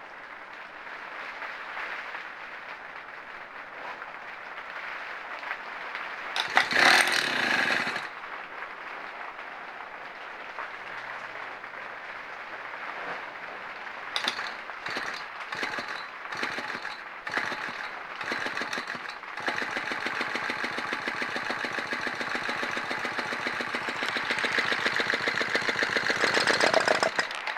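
Small gasoline engine of a scooter being cranked by its starter/generator without catching: a short crank about six seconds in, several brief tries in the middle, then a long, even crank of about eight seconds that stops. The battery is too weak to start it, which the owner puts down to it sitting in the cold.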